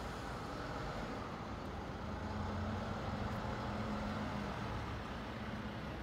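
NS Sprinter New Generation (SNG) electric train approaching from a distance: a steady rumble with a low hum that swells between about two and five seconds in.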